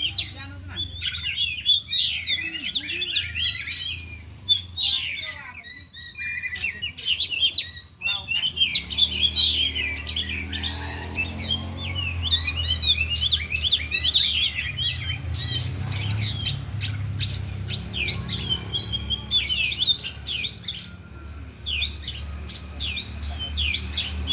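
Several oriental magpie-robins singing at once: a dense stream of rapid, varied chirps, whistles and clicks, pausing briefly about a quarter of the way in. They are pouring out their repertoire of mimicked songs.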